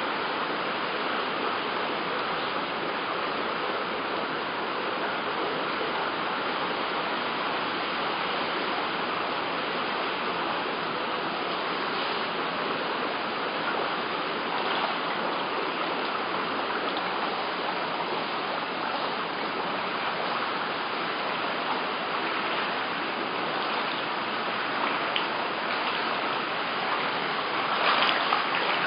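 Steady, unbroken rush of water during a flood, with a few brief louder sounds near the end.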